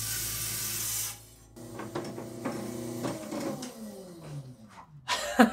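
Hi-Tech Diamond 6-inch trim saw's diamond blade cutting through a thunderegg with a steady hiss for about a second, stopping as the blade breaks through. The saw then runs free and winds down with a falling whine.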